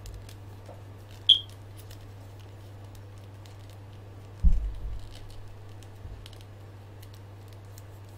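Small clicks of a plastic action figure being turned over and handled. There is a short sharp click about a second in and a loud low thump about four and a half seconds in, over a steady low electrical hum.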